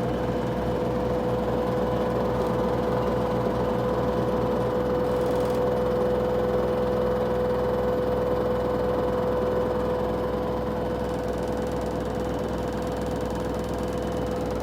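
LG WM3455HW front-load washer-dryer spinning its drum at extra-high speed, a steady motor whine over a low rumble. A regular throb in the rumble evens out about five seconds in.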